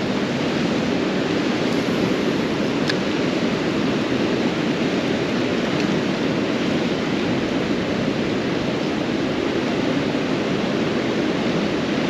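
Steady loud rush of river water pouring over and below a dam, an even noise without pauses.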